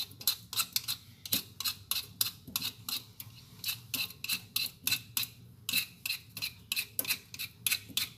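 Hand peeler scraping the skin off a pale round fruit: quick, short scraping strokes, about three or four a second, in an even rhythm.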